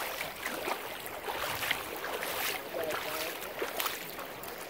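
Wind on the microphone and water along a rocky shoreline, with irregular crunching footsteps on pebbles and coral rubble.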